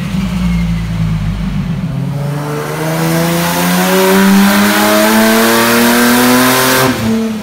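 Turbocharged Nissan 350Z's 3.5-litre V6 making a full-throttle pull on a chassis dyno. The revs climb steadily for about four seconds, then the throttle closes suddenly near the end.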